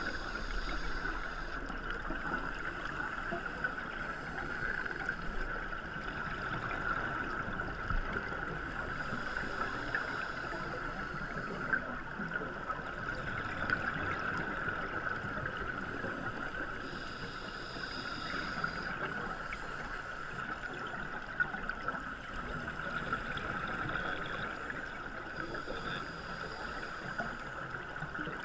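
Underwater ambience on a scuba dive: a steady hiss, with the bubbling of scuba regulator exhaust surging every eight seconds or so.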